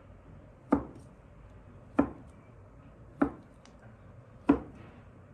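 Knife chopping a rolled-up dough log into equal pieces, striking the cutting board four times, about once every 1.3 seconds.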